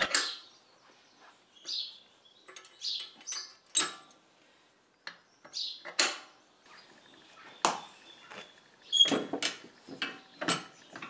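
Scattered metallic clicks, clinks and knocks from a rusty hydraulic ram's piston rod and steel fittings being worked by hand, with quiet gaps between them. A denser run of knocks comes near the end.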